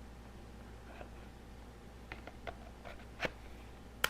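Light scattered clicks and taps of plastic parts being handled, with one sharp, louder click at the very end.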